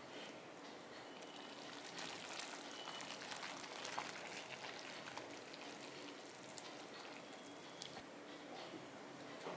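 Black spatula stirring thick, soupy rice-and-lentil bisi bele bath in a pressure cooker pot: faint wet squelching and sloshing with a few light knocks of the spatula against the pot, louder for a few seconds in the middle.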